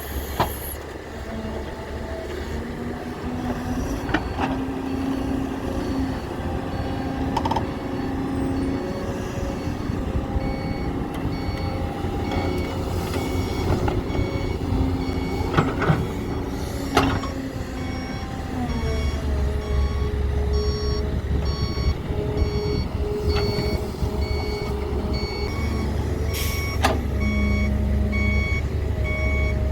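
Heavy diesel engines of an excavator and dump truck running, the engine pitch rising and falling with the work. From about halfway through, a reversing alarm beeps about twice a second, and a few sharp knocks come through.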